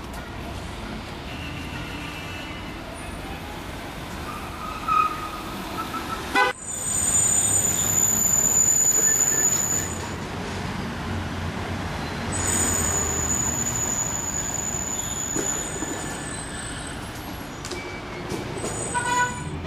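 City street traffic with a steady wash of vehicle noise. Twice, a loud, very high-pitched horn-like tone sounds for about three seconds, once right after a short break and again about twelve seconds in.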